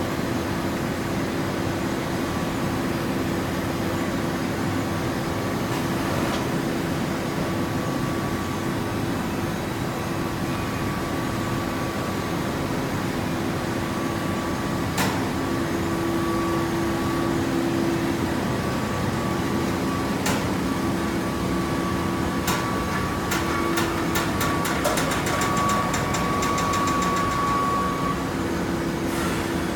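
Hydraulic baling press running: a steady mechanical hum with a higher whine that comes and goes, a few sharp clicks around the middle, and a quick run of clicks in the last few seconds.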